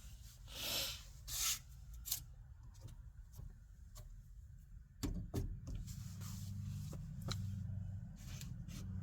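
Hands working on a car door's inner panel and window parts: two short scraping rustles and a click in the first couple of seconds, then scattered light clicks. About five seconds in a steady low hum starts suddenly and carries on under further clicks.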